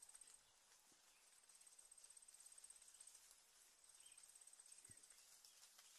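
Faint, high-pitched insect trill from a cricket, coming in three stretches of one to two seconds with short gaps between them.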